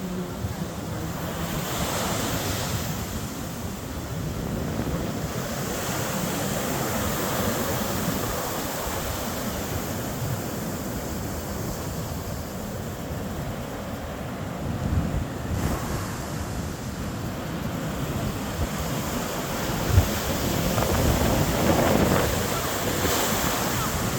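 Sea waves breaking and washing on a sandy beach, rising and falling in slow swells. Wind buffets the microphone with low rumbling gusts, and one short bump comes about 20 seconds in.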